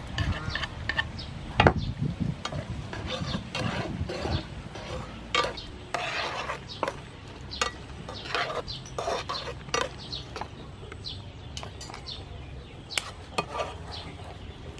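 Metal tongs clinking and scraping against a frying pan as shrimp are stirred in boiling water, in irregular taps with one sharper clank about two seconds in, over the low bubbling of the boiling water.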